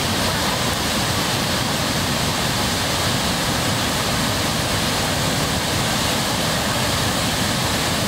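The Pailón del Diablo waterfall, a large volume of water plunging into its rocky gorge, making a loud, steady, unbroken rush.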